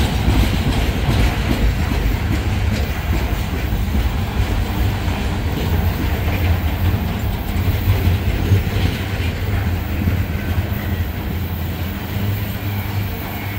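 Freight train of flatcars carrying waste containers rolling past: a steady low rumble with the clickety-clack of steel wheels over the rail joints.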